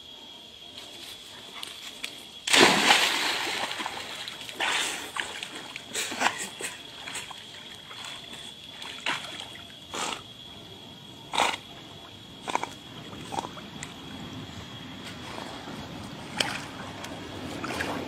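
A big splash about two and a half seconds in as a body plunges into pond water, followed by irregular smaller splashes and sloshing from a man and a dog swimming and paddling. A faint steady high-pitched tone runs underneath.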